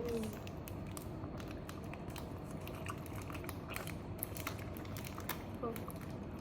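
Scattered small clicks and light crinkles of a snack's plastic packaging being handled while a sugar-coated fruit jelly is taken out and bitten, over a steady room hum.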